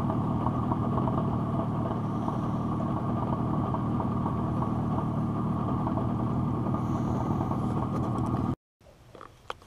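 Boat's outboard motor running steadily as the jon boat travels across the water. It cuts off suddenly near the end.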